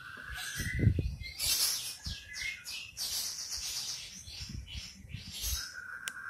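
Birds calling in the background: a few whistled notes, each rising slightly in pitch, among high chirps. A low thump about a second in.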